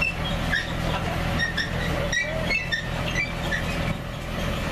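Engine of the tour wagon's towing vehicle running steadily at a low, even drone, with short high chirps scattered over it.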